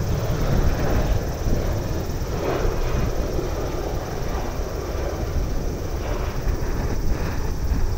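Jet noise from a Boeing 767's twin turbofan engines as the airliner passes low on final approach and flares to land: a steady rush over a deep rumble.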